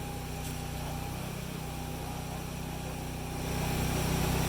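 Small engine running steadily, growing louder about three and a half seconds in.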